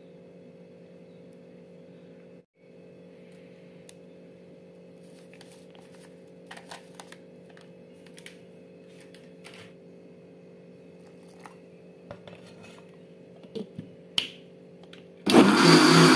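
A faint steady hum with a few light clicks and taps from the steel jar being handled. About fifteen seconds in, an electric mixer grinder starts abruptly and runs loud and steady with its lid held down, grinding the masala paste.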